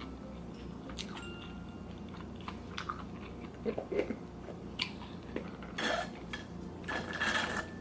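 Close-miked chewing: soft mouth clicks and smacks, with two longer, noisier stretches of chewing about six and seven seconds in.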